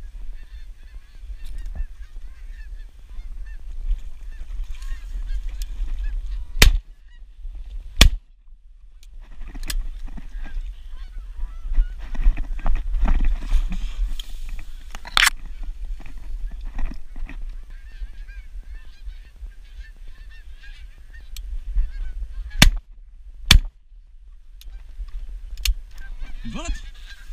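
12-gauge over-and-under shotgun firing at geese: two shots about a second and a half apart about seven seconds in, a single shot around the middle, and two more shots about a second apart near the end. Geese honk overhead throughout, with low wind rumble on the microphone.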